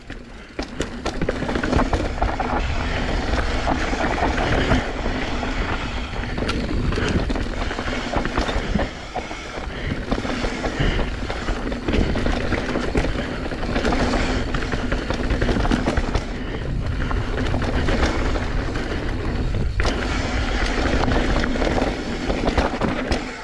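Mountain bike being ridden fast down a rough dirt trail: a constant rush of wind and tyre noise, with frequent sharp knocks and rattles as the bike hits rocks and roots.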